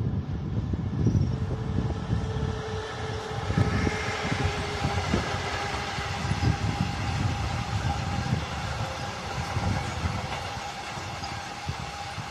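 EU07 electric locomotive approaching and passing, then car-carrier freight wagons rolling by, wheels running over the rails with irregular low thumps. A steady hum sits over the rumble.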